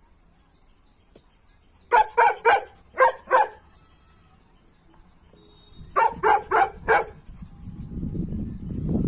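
Muzzled Tibetan mastiff barking at a goat in two quick volleys, five barks and then four. A low rumbling noise builds near the end.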